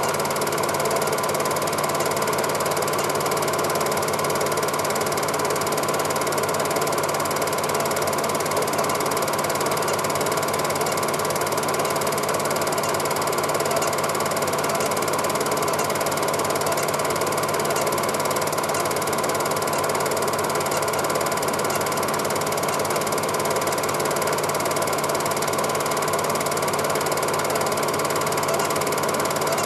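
Cine film projector running: a steady, unchanging mechanical clatter from the film transport.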